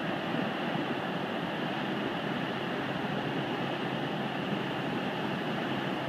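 Steady rushing noise of floodwater running across a river crossing, mixed with the drone of a road train's diesel engine as the truck drives through the water.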